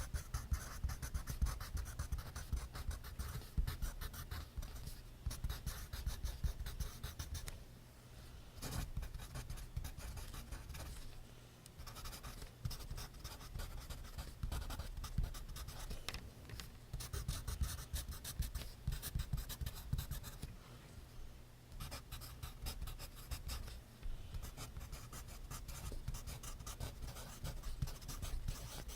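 Pencil writing on paper: quick scratchy strokes in runs, broken by short pauses.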